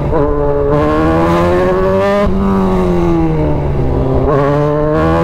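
Kawasaki Z1000's inline-four engine running under way, its note rising and falling with the throttle, with a short dip in pitch a little over two seconds in.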